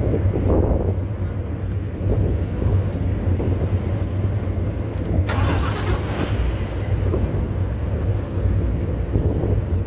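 Steady low rumble of road and traffic noise while riding, with a sudden burst of hiss about five seconds in that fades away over about a second.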